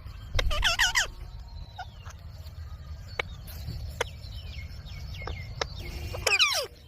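Baby rose-ringed (ringneck) parakeet calling: a quick run of squawky chirps near the start, a few clicks and soft falling whistles in the middle, and a louder falling call near the end.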